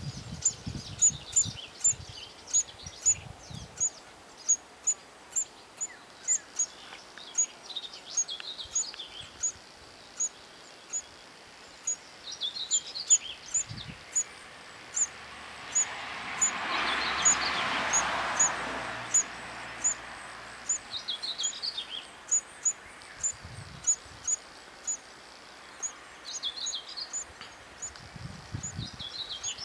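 Eurasian hoopoe nestlings calling from a tree-hole nest: a thin high chirp repeated about one and a half times a second, with short bursts of lower twittering every few seconds. A rushing noise swells and fades about halfway through.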